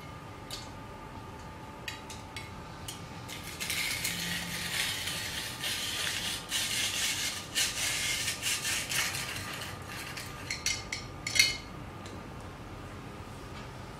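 ALISKID rotary grater with a metal drum, hand-cranked to shred carrot: a dense rasping for about six seconds as the drum turns against the carrot. It is followed by a few clicks and one sharp knock.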